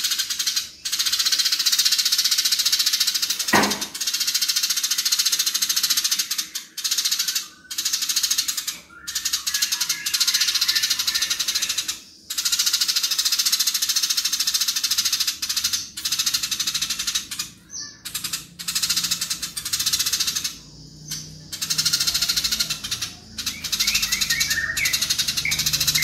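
Eurasian tree sparrow chattering in long, fast, dense runs of harsh high notes, broken by short pauses every few seconds: the agitated fighting chatter.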